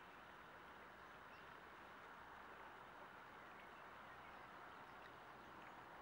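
Near silence: faint, steady outdoor background hiss at the water's edge, with a few faint, high chirps.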